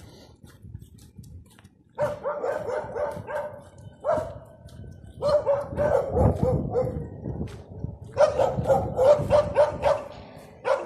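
A dog barking in quick runs of repeated barks, starting about two seconds in, with short pauses between the runs.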